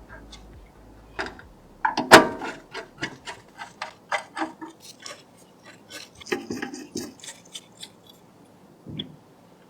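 Hard plastic and metal computer parts clicking, tapping and knocking as they are handled and fitted during a PC build: a quick run of clicks, loudest about two seconds in, thinning out after about seven seconds, with one more knock near the end.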